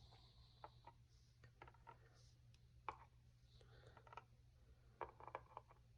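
Faint, irregular light clicks of small lock pins and springs being set out in a pinning tray, over a low steady hum.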